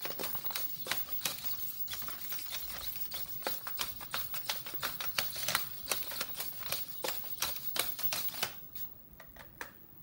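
Small plastic quadruped robot dog walking: a rapid, irregular clatter of its hard plastic feet tapping a tile floor and its leg servos clicking, thinning out to a few scattered clicks near the end.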